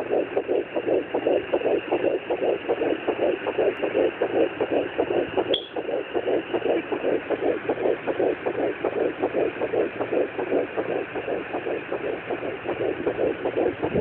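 Fetal heartbeat through a handheld fetal Doppler's speaker: rapid, even, whooshing pulses at about 120 to 140 beats a minute, with one brief click about five and a half seconds in.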